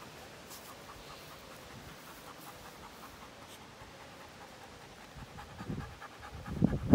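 German Shepherd panting with a fast, even rhythm. Louder low bursts come in near the end.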